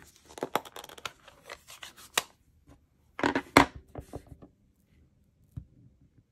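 Plastic clicks and rustling as a Stampin' Up! ink pad case is handled and opened. About three seconds in comes a louder burst of clicks as the clear acrylic stamp block is tapped onto the ink pad. A soft tap follows near the end as the stamp is pressed onto cardstock.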